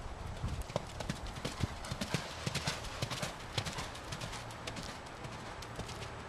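A horse's hoofbeats at a canter on sandy arena footing, a quick run of dull thuds that is loudest midway and fades toward the end as the horse moves off. The horse is a 17-year-old dark bay Thoroughbred/Quarter Horse cross (Appendix) mare.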